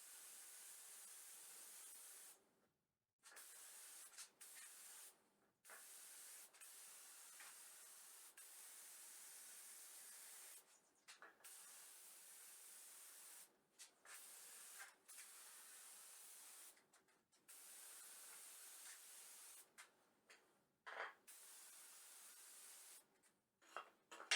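Near silence: a faint steady hiss that drops out to dead silence several times.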